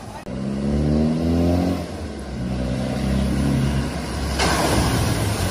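A 4x4's engine revving with a rising pitch, easing off briefly about two seconds in, then pulling again as it drives toward the flooded ford. A loud rushing hiss joins about four seconds in.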